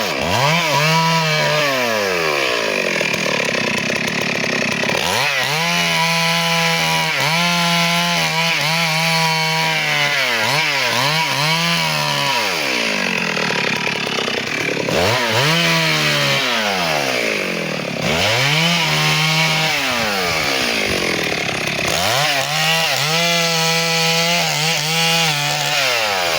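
Two-stroke chainsaw cutting teak wood, held at full throttle with the engine speed repeatedly dropping and climbing back to high revs, again and again.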